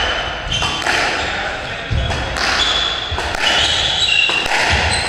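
Squash rally: the ball cracks off racket strings and the court walls several times in quick succession, with shoe soles squeaking on the wooden floor between hits.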